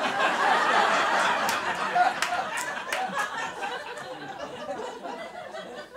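Audience laughing, starting suddenly and loudest in the first couple of seconds, then slowly dying down.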